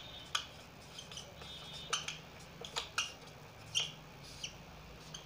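Dry-erase marker squeaking on a whiteboard while writing, in about seven short, high-pitched strokes.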